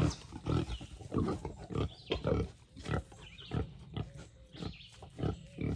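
Wild hogs grunting in a run of short, irregular grunts, two or three a second: a boar courting a sow in heat and trying to breed her.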